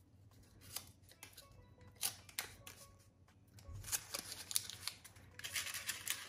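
Light clicks and rustles of paper cupcake cases as chocolate-covered strawberries are set into them and arranged, the rustling growing near the end, over soft background music.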